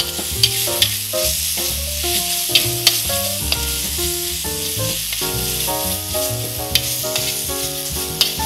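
Onion, tomato and ginger-garlic masala sizzling in oil in a metal kadai, stirred with a metal spatula that scrapes and clicks against the pan now and then. The masala base for mutton vindaloo is frying down, and stirring keeps the fibrous ginger from sticking to the pan.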